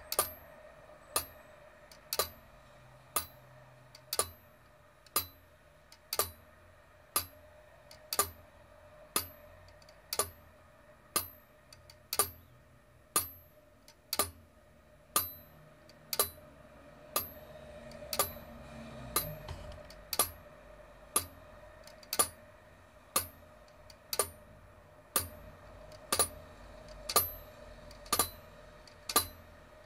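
Pendulum clock movement of a heritage bracket clock ticking evenly at about one sharp tick a second, heard from inside the clock case, with a faint steady hum beneath.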